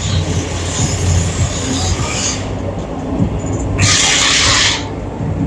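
Music playing over the stadium's loudspeakers, mixed with steady vehicle and street noise, and a loud hiss lasting about a second about four seconds in.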